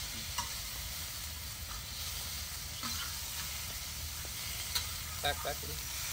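Chicken legs sizzling as they fry in a large wide pan over a wood fire, stirred with a metal slotted spatula. A few sharp clicks of the spatula against the pan come near the end.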